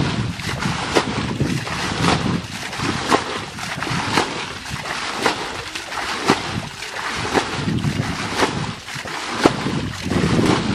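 Muddy water being bailed out of a shallow ditch with a plastic bucket: a scoop and a splash about once a second, in a steady rhythm.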